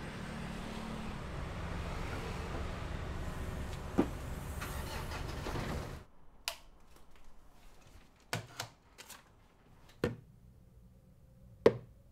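Steady low rumble of street traffic and car engines with one sharp knock about four seconds in, cutting off abruptly halfway. Then a quiet room where a handful of short, sharp knocks and taps sound, the loudest near the end, as plastic toy figures are handled and set down on a wooden shelf.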